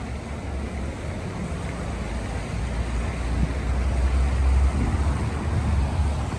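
Wind rumbling on the microphone, a steady low rumble that swells about halfway through and eases near the end.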